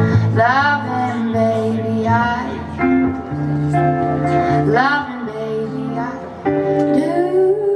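A woman singing live over guitar accompaniment, her held notes wavering with vibrato above steady plucked chords and a low bass line.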